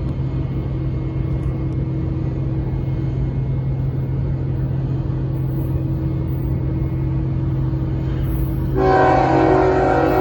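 Steady low rumble of a locomotive. Near the end its horn cuts in loud and is held, a chord of several notes at once.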